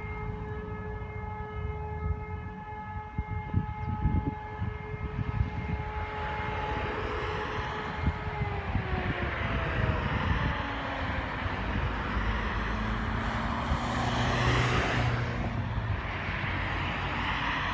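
Motor-driven civil defence siren sounding a steady tone, then winding down in pitch as it runs out, about eight and a half seconds in, during a siren function test. A rushing noise follows, loudest about fourteen seconds in.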